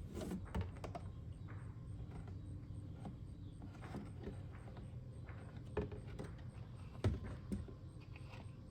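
A few scattered small clicks and knocks of objects being handled, the loudest about seven seconds in, over a low steady hum.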